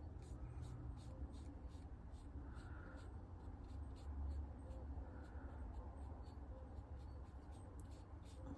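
Large flat brush stroking a watercolour wash onto paper: faint, scratchy brushing in short strokes, over a steady low hum.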